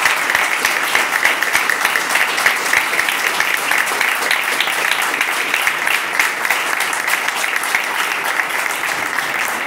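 Small audience applauding steadily, with one pair of hands close by standing out as sharp individual claps.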